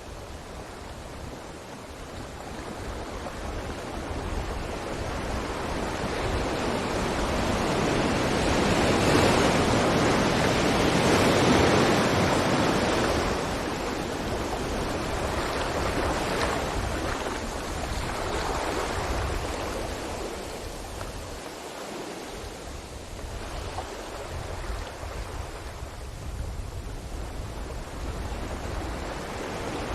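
Sea waves surging onto a beach: a rushing wash that builds to its loudest about ten seconds in and then eases off, with a couple of smaller swells after it, over a constant low rumble.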